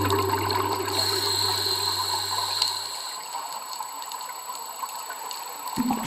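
Underwater bubbling and gurgling of scuba divers' exhaled bubbles, with a low steady hum that stops about halfway through. A lower sound cuts in suddenly near the end.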